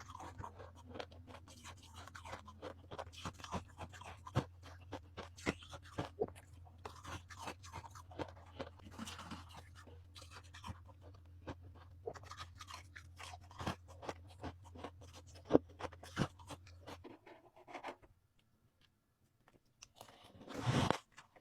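Ice cubes being bitten and chewed close to the microphone: a run of crisp, irregular cracks and crunches over a steady low hum. Both stop about 17 seconds in, and a short, louder burst of noise comes near the end.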